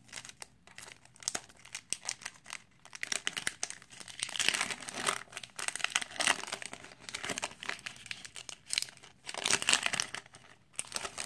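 Foil wrapper of a 2017 Topps Series 1 baseball card pack being torn open and crinkled by hand, in irregular crackling bursts that are loudest about four and a half and nine and a half seconds in.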